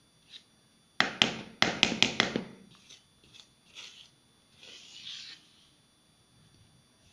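A spoon stirring flour mix in a ceramic bowl: a quick run of sharp clinks and scrapes against the bowl about a second in, then softer scraping and rubbing through the flour.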